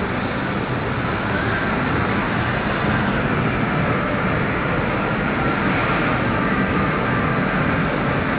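Steady rain on a wet city street: an even hiss over a low, continuous rumble of urban background noise.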